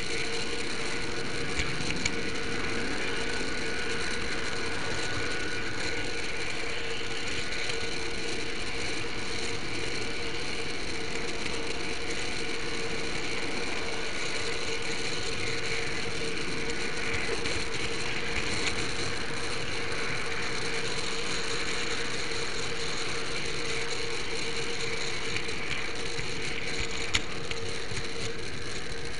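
H0m model train running, picked up close by a small camera riding on a wagon: the steady whir of the locomotive's electric motor and gearing, with an occasional faint click of the wheels on the track.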